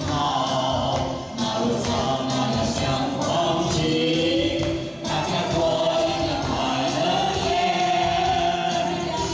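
A song sung by several voices over a musical accompaniment.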